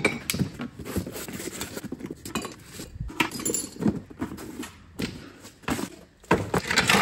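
Metal hand tools being picked up off a pallet and knocked together: scattered clinks and clunks of hammers, pliers and cordless tools, with a few louder knocks near the end.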